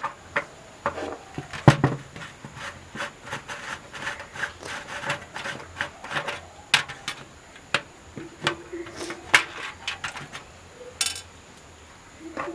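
Screwdriver unscrewing small screws from the metal plate of an LED flasher lamp: irregular light clicks, taps and scrapes of metal parts being handled.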